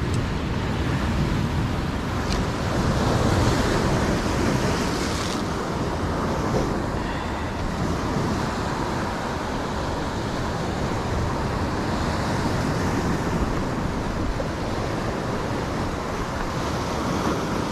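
Surf breaking against a rocky shore: a steady rush of waves that swells and eases every few seconds.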